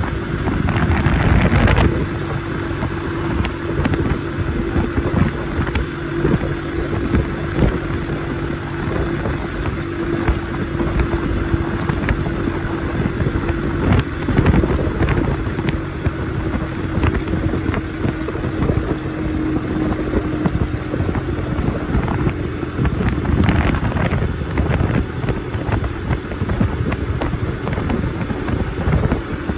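A 50cc moped engine running at a steady cruise, heard as a constant hum under the rush of riding wind and road noise on the microphone. There is a louder rush of wind in the first couple of seconds.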